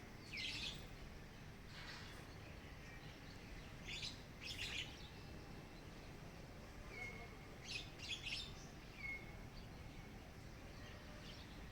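Birds chirping: short bursts of high chirps every second or two, some calls sliding down in pitch, over steady low background noise.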